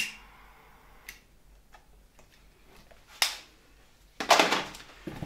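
Scattered sharp clicks and taps of small parts being handled, the loudest a little after three seconds, then about a second of rustling and scraping a little after four seconds, as pieces of heat-shrink tubing are fitted over taped vacuum-cleaner motor mounts.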